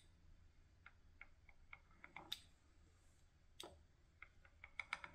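Faint, irregular ticks and clicks of a pizza cutter wheel rolling through thin dough on a wooden cutting board, with a quicker run of ticks near the end.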